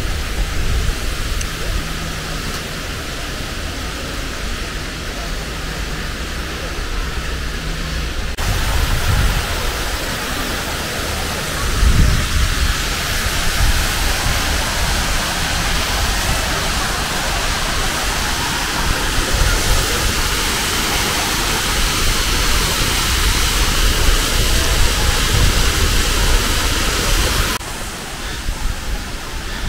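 Steady rush of falling water, with gusty low rumble of wind on the microphone. The rushing gets brighter and fuller about eight seconds in and drops back near the end.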